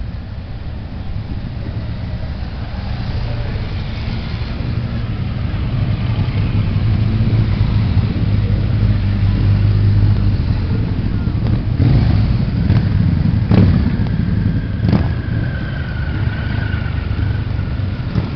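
A procession of motorcycles riding slowly past one after another, their engines running at low revs. The sound swells as the thickest part of the column goes by and eases off near the end, with a few sharp clicks in the middle.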